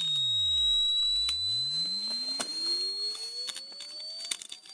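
Electronic dog-repeller sound from an app: a pure tone sweeps down until it drops out of hearing about a second in, then glides back up, over a thin high whistle that slowly climbs in pitch. Faint clicks and rustles underneath.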